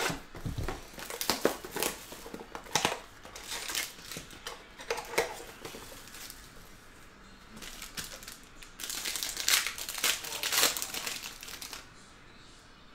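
Plastic shrink wrap and a foil card-pack wrapper crinkling and tearing as a trading card box is unwrapped and opened: a run of sharp crackles through the first few seconds, then a denser stretch of crinkling about nine seconds in.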